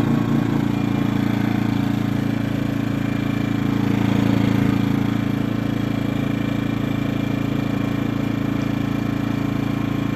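Predator 2000 inverter generator's small single-cylinder four-stroke engine running steadily, still cold just after starting. Its note swells a little for about a second around four seconds in.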